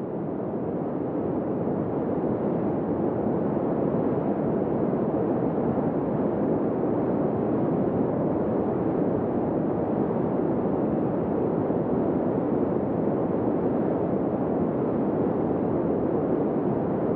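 A steady low rumbling noise with no pitch and no separate events, swelling in over the first couple of seconds and then holding even.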